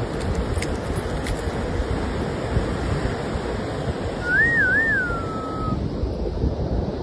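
Steady surf and wind buffeting the microphone on a beach. About four seconds in, a short clear whistle wavers up and down twice, then slides lower and fades.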